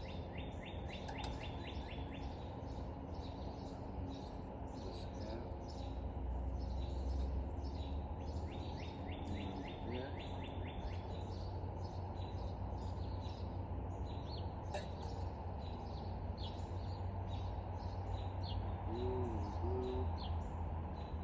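Several birds chirping and calling, with two quick rapid trills, over a steady low background rumble.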